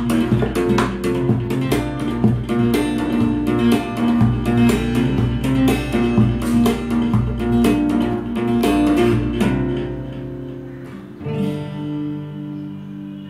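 Cutaway acoustic guitar played in a percussive fingerstyle: quick picked notes mixed with sharp slaps and hits on the strings and body. The rhythm stops about nine and a half seconds in. A final chord strikes at about eleven seconds and rings out, fading.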